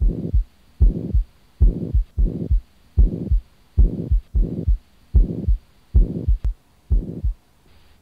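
Recorded heart sounds with a murmur: a steady lub-dub beat, about 75 beats a minute, each beat a pair of low thumps, stopping shortly before the end. A murmur like this is the sign of a leaking heart valve, most often the bicuspid (mitral) valve.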